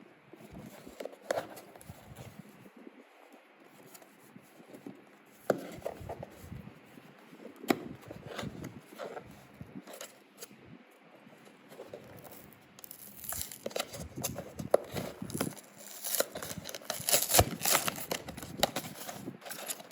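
Packaging being opened by hand: scattered clicks and rustles, then, about two-thirds of the way through, a longer stretch of louder crinkling and tearing.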